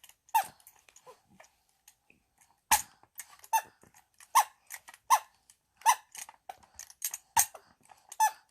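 A squeaky toy squeezed over and over, giving short, identical high squeaks that rise and fall in pitch, about one a second, with a pause of about two seconds early on.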